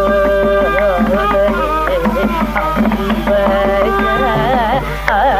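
Carnatic concert music in raga Todi: a woman singing with violin accompaniment, the melodic lines swaying in heavy gamakas over a steady drone, with mridangam and ghatam strokes underneath.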